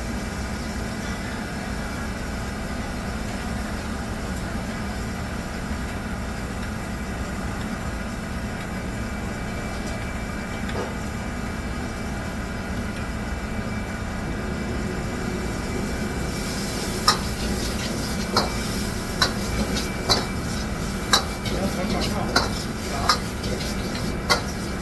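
Steady hum of commercial kitchen equipment. About two-thirds through, sharp knocks and clinks of utensils on cookware begin, roughly one a second.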